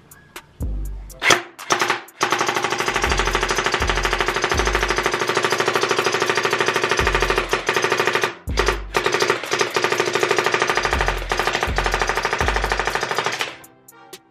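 CosmoX Sirius electric gel blaster firing full-auto: a couple of single pops, then a long rapid-fire burst, a brief break, and a second long burst that stops shortly before the end.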